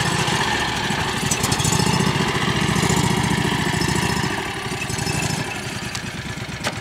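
John Deere Gator HPX utility vehicle's gas V-twin engine running as it drives down off a trailer ramp. It pulls harder for a couple of seconds, then eases off about four seconds in.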